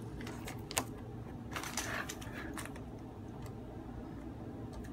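Light clicks and a short crinkle of plastic as a small clear zip bag of coins and plastic coin capsules are handled, mostly in the first two and a half seconds, then a few faint ticks.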